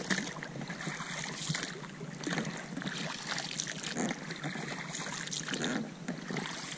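Oars of an inflatable rowing boat dipping and splashing in the water, with a few soft, uneven splashes over the lapping of water against the boat.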